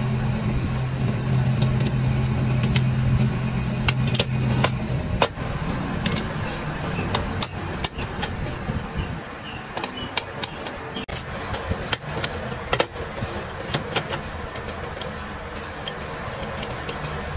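Assembly of a fries cutter: scattered metallic clinks and light hammer taps on the cast aluminium frame and steel rods, over steady workshop background noise. A low steady hum stops about five seconds in.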